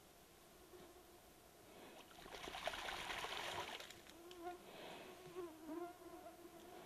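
Insects buzzing close by, their whine wavering in pitch. In the middle, water splashes for about two seconds as a black bear wading in a pond moves her head in the water.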